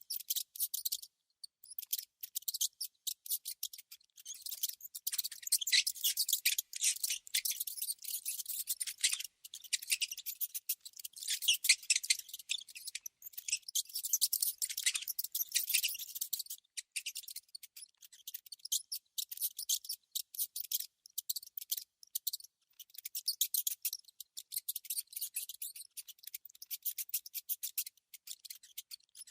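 Rodent noises: rapid, high-pitched scratchy clicking and chittering in irregular runs broken by short pauses.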